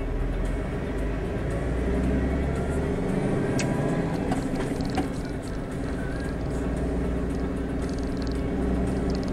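Iveco truck's diesel engine and road rumble heard from inside the cab while driving: a steady low drone. The deepest rumble eases for a couple of seconds near the middle, then returns.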